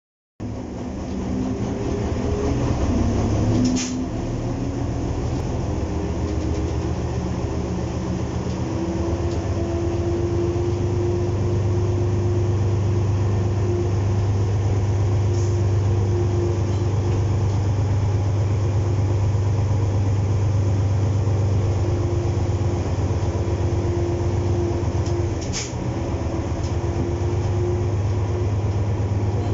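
W.G. Bagnall 0-6-0 diesel-mechanical shunter's engine heard from inside its cab, running steadily under power with a low drone as the locomotive moves. A sharp clunk comes about four seconds in and another near the end, each followed by a brief dip in the engine note.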